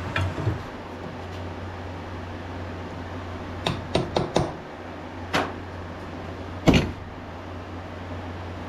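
Sharp clicks and knocks of small parts being handled as the bearings and spacer are fitted into a belt grinder's 2-inch platen wheel: a few just after the start, a quick cluster a little under halfway, one more shortly after, and the loudest near the end. A steady low hum runs underneath.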